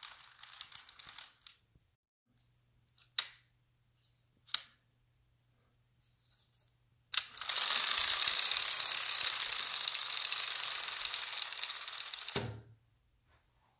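Rubber-band-powered wooden gear train of a UGears plywood model truck, released and spinning, with a fast, even whirring clatter of wooden gear teeth. It starts suddenly and runs about five seconds before stopping abruptly. Two sharp clicks come a few seconds earlier.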